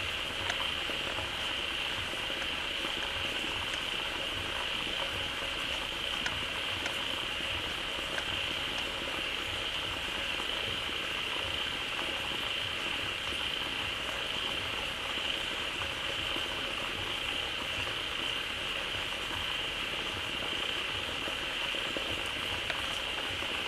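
A dense chorus of many frogs calling at once at a freshly filled pond, a continuous massed croaking with a steady high-pitched band of calls over it.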